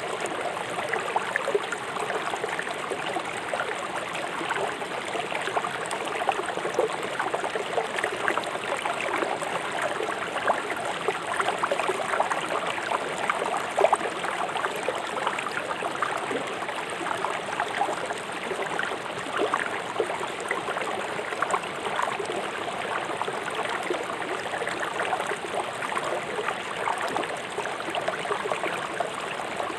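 River water flowing fast over stones: a steady rushing and gurgling, thick with small splashes.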